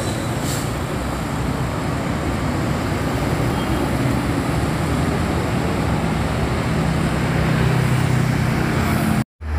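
Road traffic at a busy intersection with a heavy engine running, a bus pulling away, growing somewhat louder near the end. The sound cuts out abruptly for a moment just before the end.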